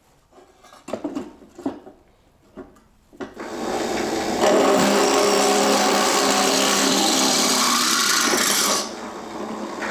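A few light clunks of the steel motorcycle carrier being set in the drill press vise. About three seconds in, a bench drill press starts and drills an 8 mm hole through the carrier's steel, running loud and steady. Near the end the sound drops to a lower level.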